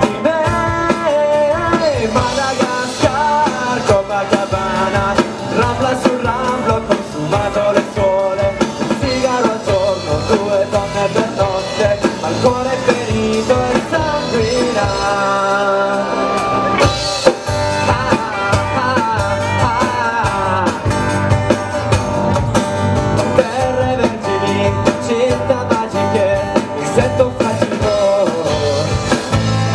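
Live rock band playing a surf-influenced pop-rock song, with electric guitars, bass guitar and drum kit under a male lead vocal.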